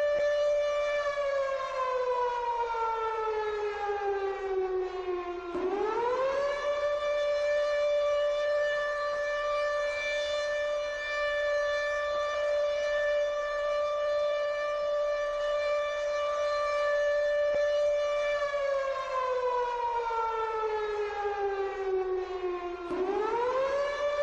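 Civil defense siren sounding a nuclear-attack warning: one loud, steady, pitched wail that holds, slides down in pitch for about four seconds, then swoops quickly back up and holds again. The fall and quick rise come twice, about 5 s in and again near the end.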